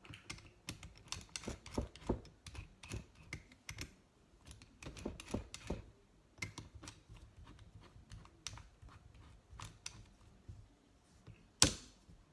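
Irregular small clicks and knocks of hand tools being handled as the drill and hinge-boring bit are set up, with a sharp louder click near the end. No drill motor is running.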